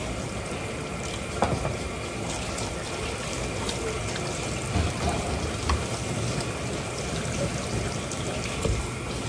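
Steady rush of running water, with a few short knocks.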